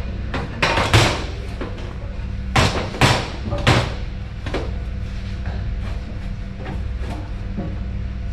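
A metal exhaust downpipe being handled and set in place: a few short knocks and rustling clatters, mostly in the first half, over a steady low hum.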